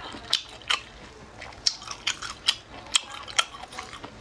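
Close-miked chewing of octopus: about seven sharp, wet mouth clicks and smacks at irregular intervals.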